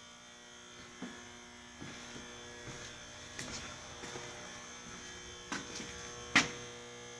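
A steady electrical buzz with several fixed pitches, under a handful of scattered light knocks and clicks, the loudest one near the end.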